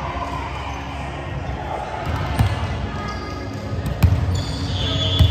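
Three sharp thuds of a volleyball in a gym, about a second and a half apart, over the hall's echoing background and faint voices.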